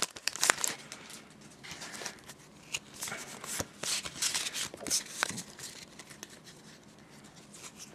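Pokémon card booster pack being opened and handled: crinkling of the foil wrapper and cards sliding and tapping, in short rustles and clicks, dying down over the last couple of seconds.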